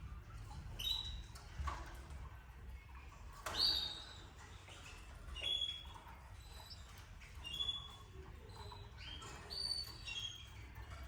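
Canaries giving short, high chirps scattered about one a second, the loudest about three and a half seconds in, over a low steady hum.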